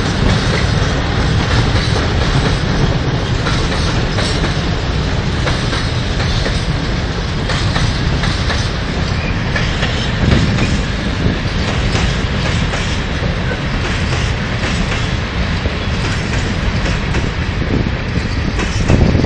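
A freight train of empty open-top coal wagons rolling past close by. The wheels go clickety-clack over the rail joints in a steady rattling rumble.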